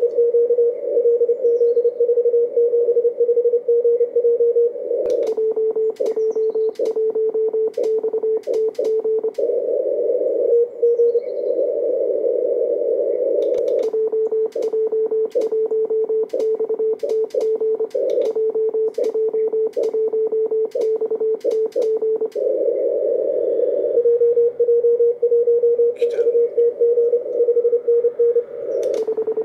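Morse code on an amateur radio transceiver: a single steady tone keyed in dots and dashes over receiver hiss, with scattered sharp clicks. It is an operator calling a distant station in Morse at 10 watts, his transmit sidetone mixed with the signals heard between calls.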